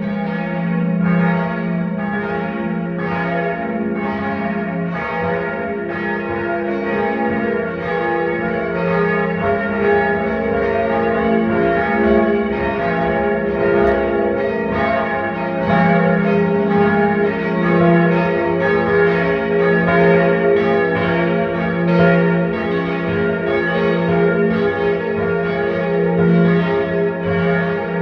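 Church bells ringing in a full peal: several bells striking in an overlapping run, with each stroke roughly a second after the last and the long tones sustaining between strikes.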